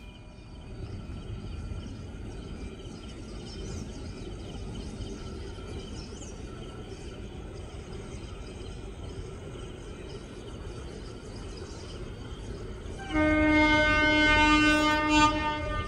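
Low rumble of an approaching train hauled by a WAP7 electric locomotive. About 13 seconds in, the locomotive's horn sounds one long, loud blast lasting about two and a half seconds.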